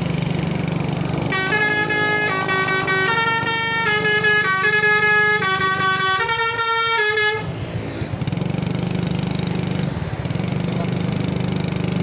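A Basuri V3 telolet horn on a coach plays a tune, several tones sounding together and stepping from note to note, starting about a second in and cutting off a little past halfway. Under it, and alone afterwards, the coach's engine runs with a steady low rumble.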